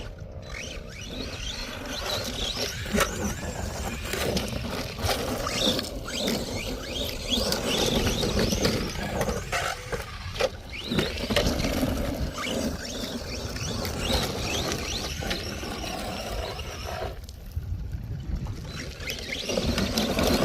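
ARRMA Vortex RC truck's electric motor whining, its pitch rising and falling repeatedly with the throttle, while the tyres scrabble over dirt and small stones tick and patter against it. The run goes quieter for a couple of seconds near the end.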